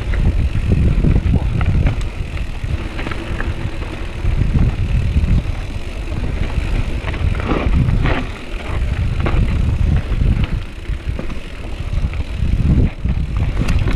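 Mountain bike rolling over a rough trail: a heavy, uneven rumble of wind and tyre noise on a helmet or bike-mounted action camera, with scattered rattles and knocks from the bike.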